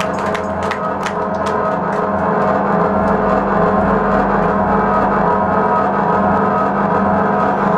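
Live band music: a loud sustained, droning chord that rings on without a beat, with a few sharp ticks in the first second and a half.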